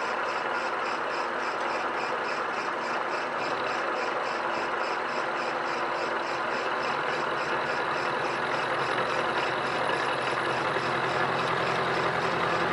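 Vertical milling machine running with an end mill cutting an angled notch about halfway through a steel tube: a steady motor hum under continuous cutting noise, with a faint, even, high-pitched ticking.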